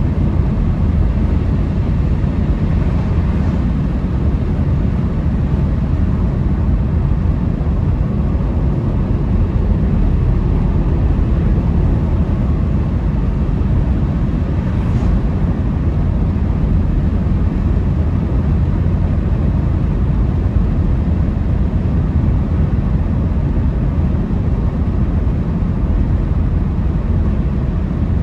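Steady road noise inside a moving car's cabin: a low rumble from the tyres on a wet road and the running gear at cruising speed, with a faint brief whoosh about fifteen seconds in as an oncoming car passes.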